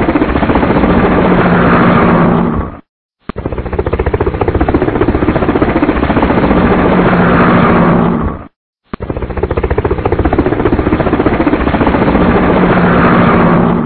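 Loud, rattling machine-like rumble, the same stretch of about five and a half seconds looped over and over, each repeat broken off by a short silent gap.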